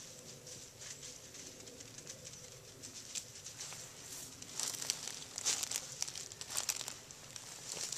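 Footsteps crunching and rustling through dry fallen leaves and dead bracken, growing louder and more crackly from about four and a half seconds in.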